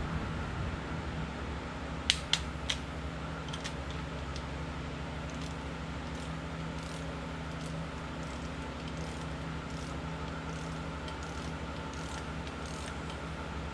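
Three sharp metal clicks of a wrench in quick succession about two seconds in, then scattered faint ticks, while glow plugs are torqued on a 7.3 Powerstroke diesel. A steady low hum runs underneath.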